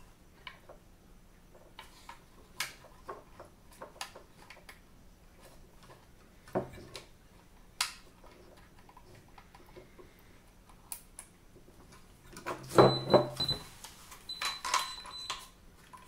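Plastic housing of a smart deadbolt lock being handled, with scattered light clicks and taps as its wiring connector is plugged in. Near the end there is a denser burst of clatter, with two short high beeps.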